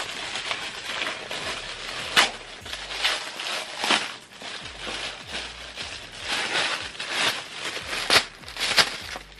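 Clear plastic packaging bag crinkling and rustling as it is handled, with several sharper crackles of the plastic.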